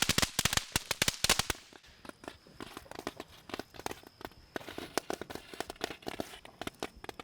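Novelty firework tanks going off: a rapid string of loud, firecracker-like cracks for about the first second and a half, then scattered, fainter pops and crackles.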